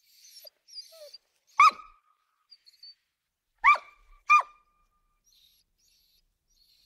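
Dog barking: three short, sharp barks, one about a second and a half in, then two in quick succession near four seconds. Faint high chirps sound in the first second.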